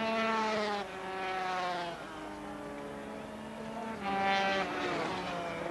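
Single-cylinder two-stroke 125cc Grand Prix racing motorcycle engines at high revs, the pitch sliding down over the first couple of seconds. About four seconds in, another engine note comes in higher and falls away.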